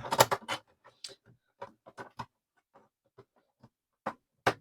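Irregular clicks and light knocks of hard parts being handled and fitted into a hi-fi speaker cabinet, with louder knocks at the start and near the end.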